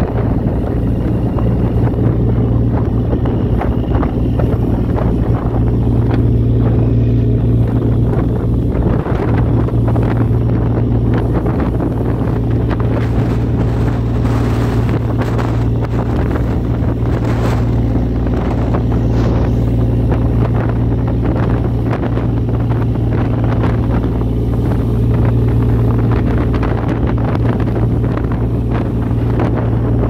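Fishing boat's inboard engine running steadily underway, a constant low drone, with wind noise on the microphone and the rush of water along the hull.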